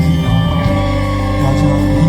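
Live amplified pop-rock band music, with bass and guitars playing a song.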